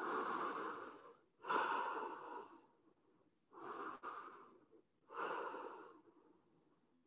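A woman breathing audibly while holding a deep rounded forward fold: four breath sounds of about a second each, with short pauses between them.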